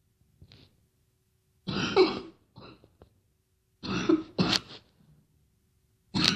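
A girl coughing in three short, harsh bouts about two seconds apart, with a small hack after the first and second bouts.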